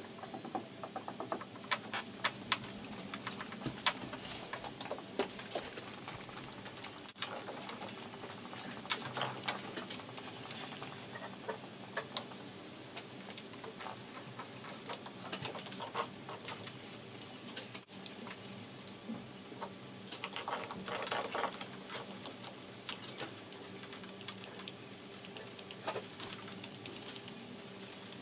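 Greyhound gnawing a raw meaty bone, its teeth making irregular cracks and crunches on the bone, with a denser spell of crunching about twenty seconds in.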